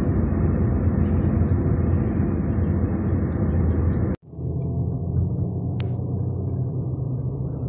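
Steady road and engine rumble heard inside a car cruising on a motorway. About four seconds in it cuts off abruptly and comes back quieter and duller as the car moves slowly in city traffic.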